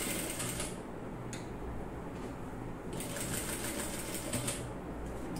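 Sewing machine stitching in two runs, the first stopping under a second in and the second starting about three seconds in and lasting about a second and a half, with a low hum between them. It is topstitching through a garment and its lining along a square neckline.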